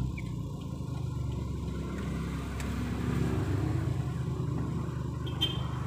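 A vehicle's engine running steadily, heard from inside the cabin as a low hum.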